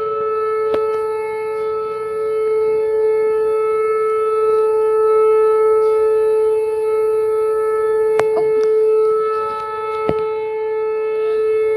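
Outdoor tornado warning siren sounding one steady, long tone that swells and fades slowly, signalling a severe thunderstorm warning.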